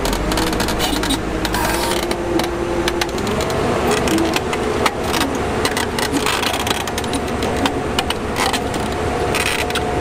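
Heavy-equipment diesel engine running steadily, its pitch stepping up about three seconds in, with frequent short knocks and clanks.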